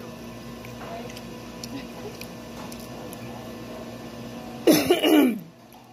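Low dining-room background, then near the end a short, loud vocal burst from a person, well under a second long, with a bending pitch.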